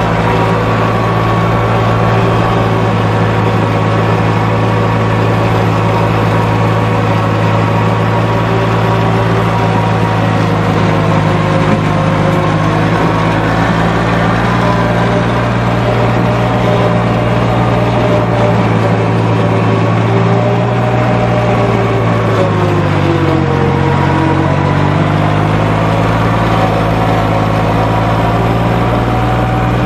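Lawn mower engine running steadily; its pitch sags for a couple of seconds about 23 seconds in, then comes back up.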